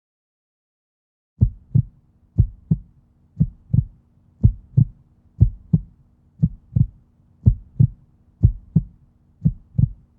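Heartbeat sound effect: low paired thumps, lub-dub, about one beat a second, with a faint steady hum beneath. It starts after a second or so of dead silence.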